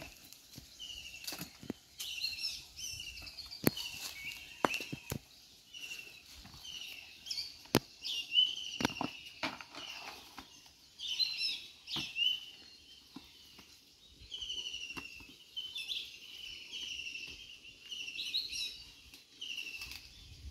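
Birds chirping throughout in short, repeated falling notes, with scattered sharp knocks and rustles as fallen kokum fruits are picked from the leaf litter and dropped into a plastic tub.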